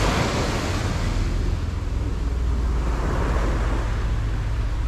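Small waves breaking and washing up a sandy beach, under a steady low rumble of wind on the microphone.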